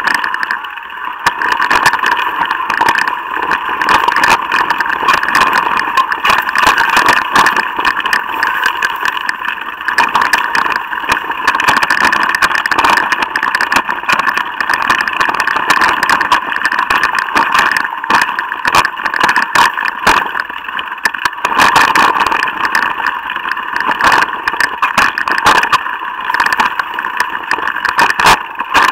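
Mountain bike rolling fast down a rough dirt trail: a steady, loud buzz from the bike with constant rattles and knocks as it goes over bumps.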